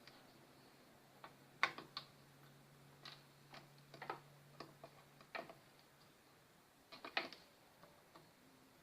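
Scattered sharp clicks and taps of small hand tools handled at a TV repair bench, irregular and quiet, with two louder clusters early and near the end.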